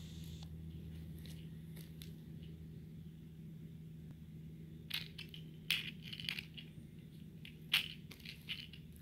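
A bottle top clicking and skittering on concrete as a cat bats it about. The clicks come in a quick run from about halfway through, two of them sharper than the rest, over a steady low hum.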